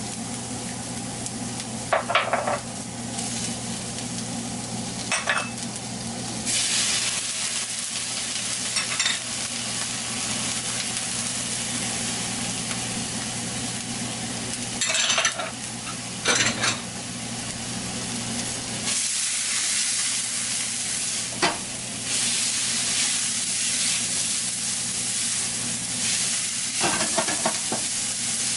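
Chopped vegetables sizzling in oil in a stainless-steel frying pan while a spatula stirs them, with scattered short scrapes and knocks of the spatula against the pan. The sizzle swells louder in stretches as the food is turned.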